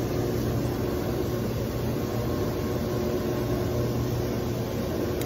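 Steady low machine hum over an even rushing noise.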